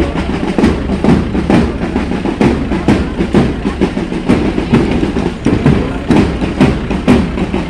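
Marching drums beating a steady march rhythm, about two strokes a second.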